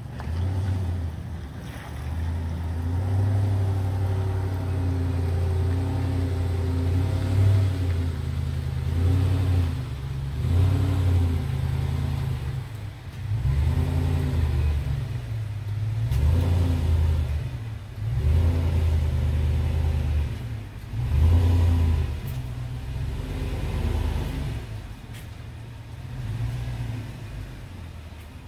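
Toyota Tundra pickup engine revving in repeated surges that rise and fall, as the truck reverses up an icy driveway into a garage.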